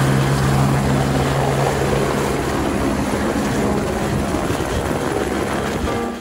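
Light single-rotor helicopter lifting off and climbing away, its rotor and turbine engine running with a steady low hum under heavy rotor noise.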